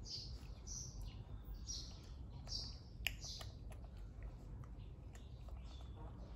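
A bird chirping repeatedly: short, high, falling notes about once a second, thinning out in the second half. A sharp click comes about three seconds in, with a few faint ticks after it.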